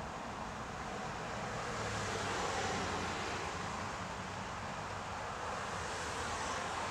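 Steady street traffic noise, swelling slightly about two seconds in as a car goes by, over a low steady hum.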